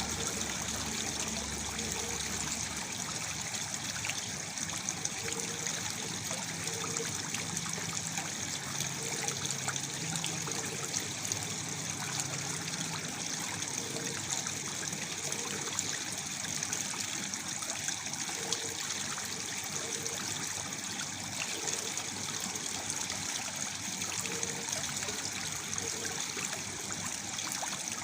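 Steady flow of water from a waterfall, falling and trickling into a pool.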